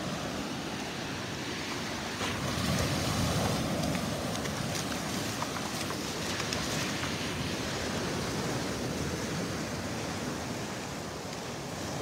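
Surf: small waves breaking and washing up onto a sandy beach in a steady rushing wash, swelling a little about two to four seconds in.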